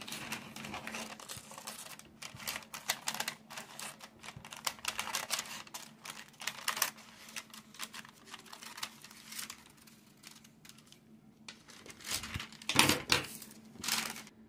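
Scissors cutting through parchment paper: a run of short, crisp snips with paper crinkling and rustling. A couple of louder knocks come near the end.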